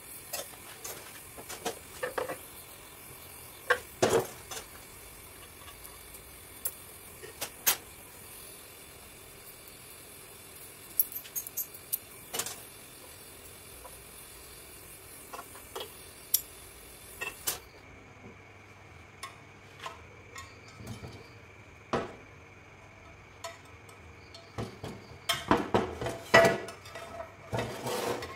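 LPG gas torch flame hissing steadily, with occasional sharp ticks, while aluminium filler rod is melted onto a cast aluminium cover. The hiss cuts off suddenly about two-thirds of the way through. Near the end comes a quick run of metallic clinks and knocks as the cover is handled on the steel bench.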